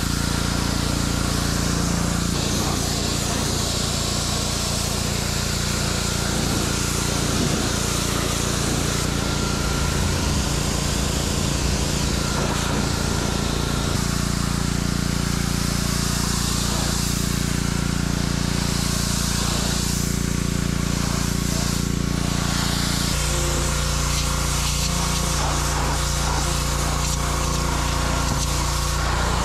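Gas-engine pressure washer running steadily, with the hiss of its high-pressure spray blasting dirt off a fiberglass boat hull. The sound changes abruptly about two-thirds of the way through.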